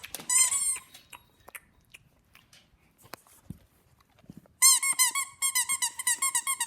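A squeaky toy being squeezed by a dog chewing it. There are a few squeaks at the start, then a quick run of squeaks, about five a second, from the middle on.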